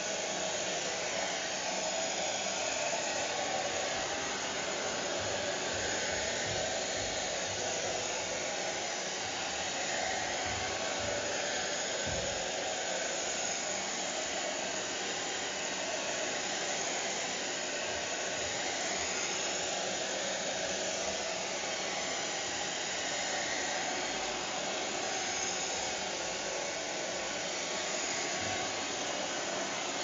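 Hair dryer running steadily: an even rush of blown air and motor, its tone drifting slowly.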